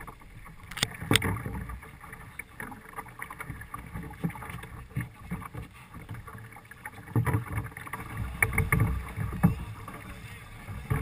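Cornish pilot gig being rowed hard in choppy water: irregular sharp knocks of the wooden oars working against the boat, over a steady low rush of wind and water on the microphone.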